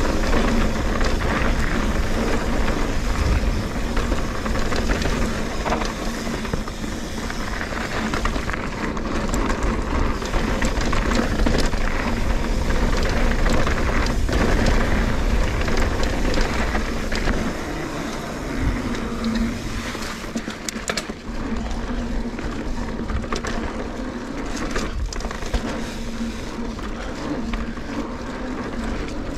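Trek Fuel EX 8 full-suspension mountain bike riding a dirt singletrack: wind buffeting the action-camera microphone over the tyres' rumble, with scattered clicks and knocks from bumps. The level drops a little about two-thirds of the way through.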